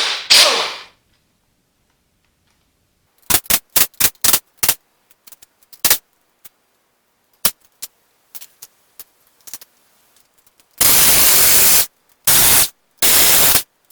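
Metal tools clanking a few times, then an air impact wrench running in three bursts of about a second each, undoing the bolts holding the clutch and flywheel to the engine.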